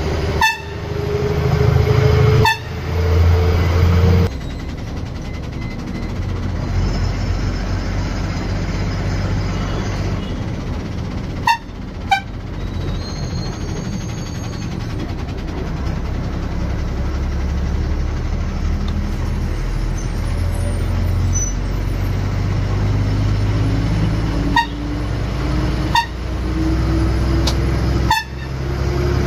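Ashok Leyland BS-6 bus running on the road with a steady low engine drone. A whine rises in pitch at the start and again near the end, and several sharp knocks are heard.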